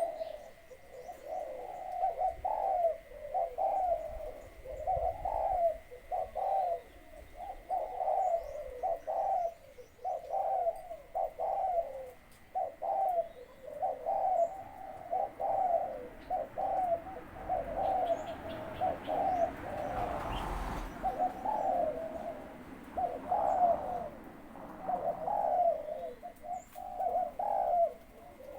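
Male zebra dove of a Malaysian song line cooing over and over in quick rolling phrases of small, clear notes.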